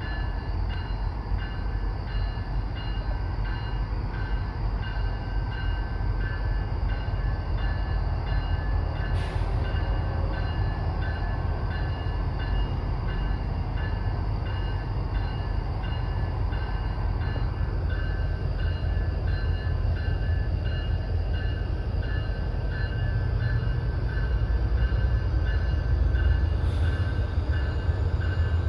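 Freight train rolling by: a steady low rumble of the cars with a faint high-pitched whine, getting a little louder near the end.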